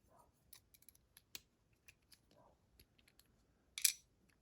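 Light metallic clicks and ticks of a lock and small tools being handled as the lock is taken apart, with one louder, brief metallic snap near the end.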